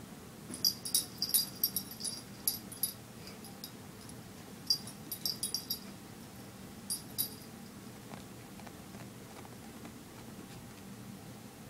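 Baby mini rex rabbits, about a week old, giving short, high-pitched squeaks in quick clusters while being handled: a rapid run in the first few seconds, another burst about five seconds in and two more near seven seconds.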